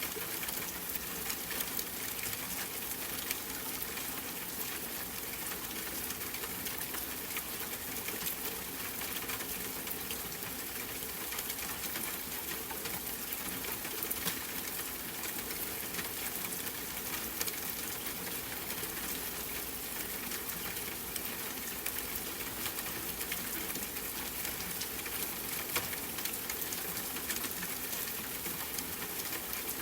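Steady rain falling, an even patter of many small drops that keeps up without a break.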